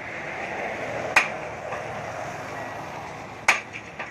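Two sharp metallic strikes of a hammer on metal, a little over two seconds apart, each with a short ring, over a steady background hiss.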